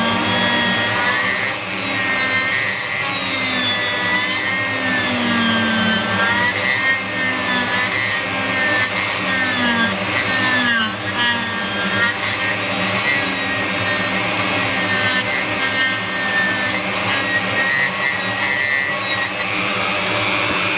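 Rotary tool with a carbide burr grinding into a burnt fibreglass circuit board, cutting away the carbonised material around a hole. The motor whine dips and recovers in pitch about once a second as the burr bites, then holds steadier in the second half.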